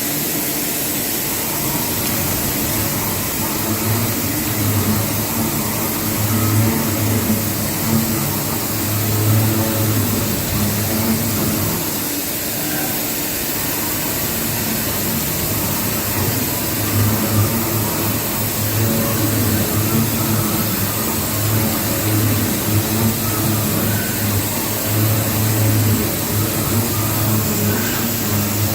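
CNC machine tool running during machining: a steady hiss with a low hum that swells and fades every few seconds.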